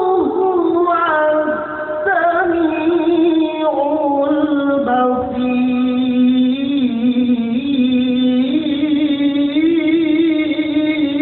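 Male Qur'an reciter chanting in the melodic tilawah style, holding long ornamented notes without distinct words. The pitch steps down about two and five seconds in, rises again past eight seconds, and wavers in a vibrato near the end.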